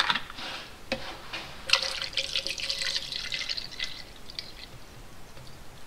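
Household cleaning ammonia poured from a plastic bottle into a plastic cup: a splashing pour that starts a little under two seconds in and fades out about a second before the end. Before it come a couple of short clicks as the bottle's cap is opened.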